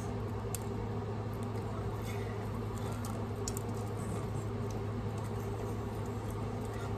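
Soft chewing and small wet mouth clicks of someone eating a hot dog wrapped in baked dough, with a bite taken partway through, over a steady low hum.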